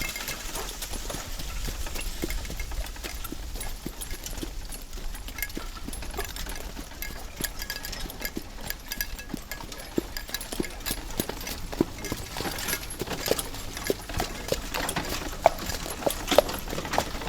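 Riding aboard a horse-drawn wooden cart: a horse's hooves clip-clopping over a low, steady wheel rumble, with irregular knocks and short creaks from the cart, the creaks coming more often in the second half.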